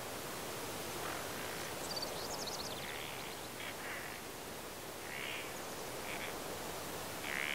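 Field ambience: a steady hiss of wind with birds calling over it. A quick high trill comes about two seconds in, followed by several short separate calls.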